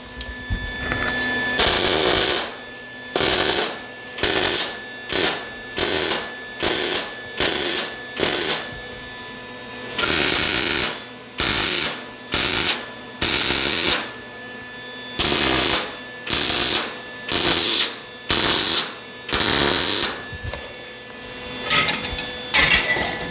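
MIG welder stitch-welding a joint in steel exhaust tubing one dot at a time: about twenty short bursts of arc crackle, each under a second, separated by brief pauses.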